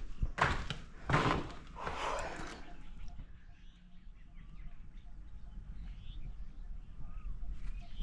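A few loud rustling scuffs in the first three seconds, then faint bird chirps and a faint even ticking about twice a second over quiet outdoor background.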